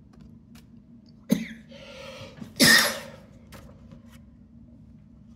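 A man coughing: a sharp cough about a second in, then a louder, longer cough a moment later.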